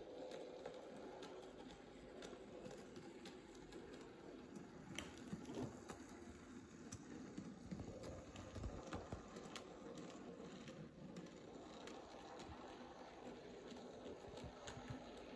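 Small home-built Nm-scale narrow-gauge model steam locomotive and its wagons running around a track oval, heard faintly as scattered light clicks and rattles of wheels on rail. It gets a little louder around the middle as the train passes close.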